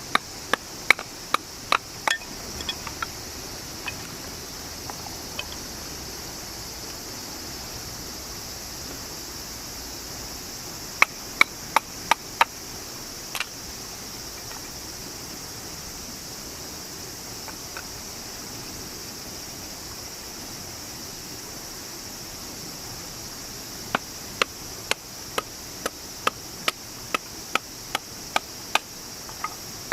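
Insects, cicadas or crickets, chirring steadily and high, with three runs of sharp knocks: about six at the start, five together in the middle, and a steady string of about two a second near the end.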